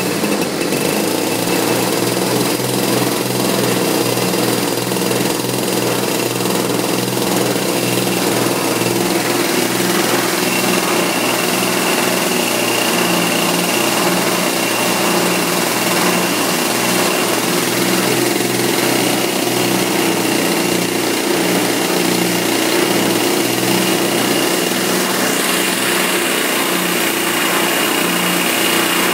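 Small leaf-blower petrol engine running steadily on a bench test stand. Its pitch shifts slightly just after the start, and a thin high whine joins in about a third of the way through.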